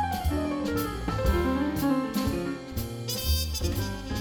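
Instrumental background music: a melody that runs downward near the start, over bass and regularly struck drums.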